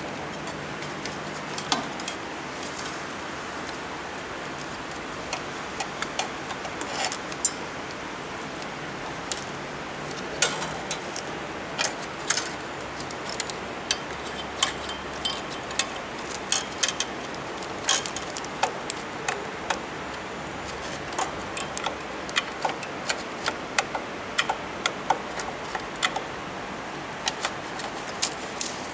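Screwdriver and screws clicking and scraping against the metal printhead carriage plate of a UV printer as the printhead is unscrewed: irregular sharp metallic clicks and ticks, at times several a second, over a steady hiss.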